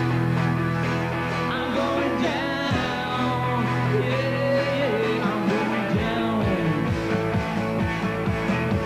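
Live rock band playing through a festival PA: sustained bass notes under electric guitar lines that bend in pitch, with a regular drum beat picking up about six seconds in.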